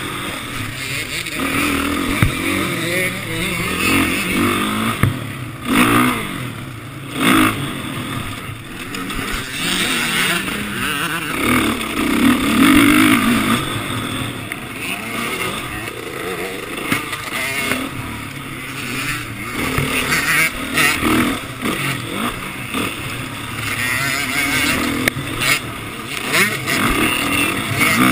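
Motocross bike engines revving up and down, growing louder and fading again several times as bikes pass.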